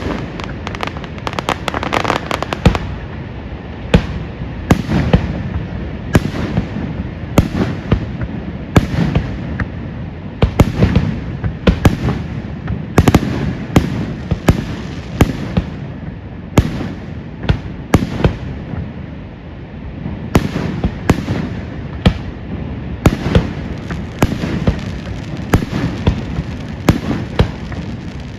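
Fireworks display going off in quick succession: many sharp bangs and booms, one to three a second, over a constant crackle and rumble.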